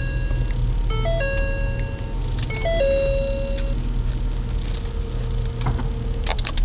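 An electronic alarm melody of stepped beeps plays three times in quick succession over the steady low hum of a car engine idling. A couple of sharp clicks come near the end.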